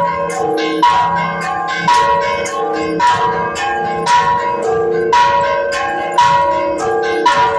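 Church bells rung in a repique as the call to Mass: several bells of different pitches struck by hand in a quick repeating pattern. The strongest strikes come about once a second, with lighter strokes between, and each rings on into the next.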